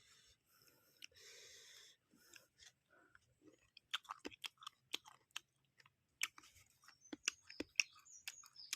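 Close-miked eating sounds: chewing with wet mouth clicks and small crunches, sparse at first and coming thick and irregular from about four seconds in.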